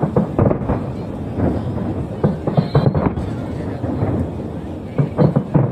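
Aerial fireworks shells bursting: a continuous low rumble of distant booms, with clusters of sharp, loud bangs near the start, around the middle and near the end.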